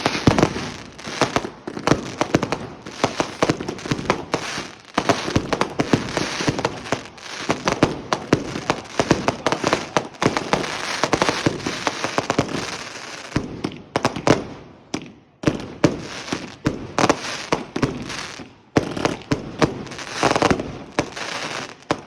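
Fireworks going off in a dense, continuous barrage of rapid bangs and crackling, with brief lulls about two thirds of the way through.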